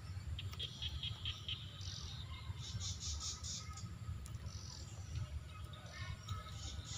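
Short high-pitched chirps in quick series, several times, from small wild animals such as birds or insects, over a low steady rumble.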